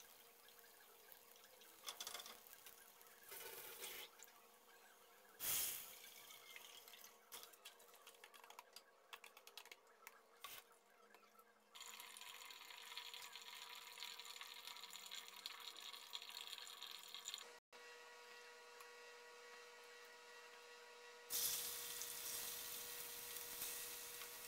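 Food cooking in pots and a frying pan on a gas stove: a steady sizzling, bubbling hiss, with scattered clicks and a single knock about five seconds in. The sound changes abruptly a few times and is loudest near the end.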